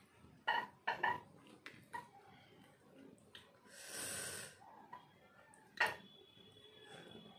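A person eating roti dipped in dal by hand: a few short mouth and chewing sounds in the first two seconds, a breathy hiss about four seconds in, and a sharp click near six seconds.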